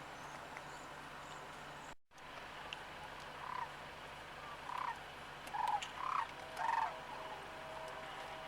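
Sandhill cranes calling: a run of about five short calls, starting about three and a half seconds in and ending about seven seconds in.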